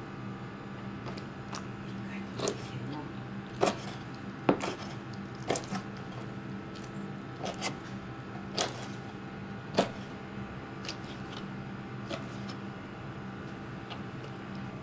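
Kitchen knife striking a plastic cutting board in irregular single chops as fish is sliced, about nine sharp knocks over a steady low hum.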